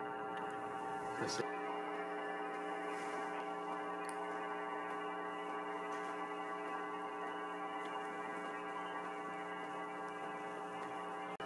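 Steady electrical mains hum, a buzz of several even tones held level throughout, with a faint tick about a second in.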